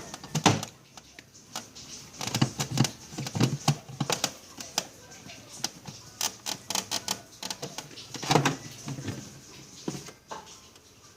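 Irregular sharp clicks and knocks of small plastic and metal parts being handled while working on a refrigerator, with a few duller thumps among them.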